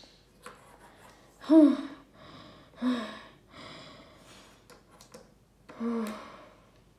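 A child's voice making three short, breathy vocal sounds, the last after a longer pause, with a few faint clicks of plastic toy pieces being handled between them.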